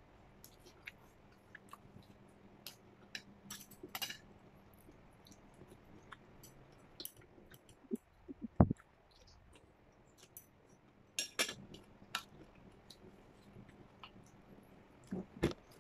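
Eating sounds: a spoon and chopsticks clicking and clinking against stainless steel bowls and plates, with chewing and mouth sounds. Scattered small clicks, with a few louder knocks near the middle and end.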